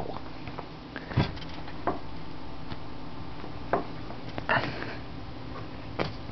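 Brief rustles, bumps and breathy scuffs, about five of them, as a cat wrestles and kicks at a person's sleeved arm on carpet, over a steady low hum.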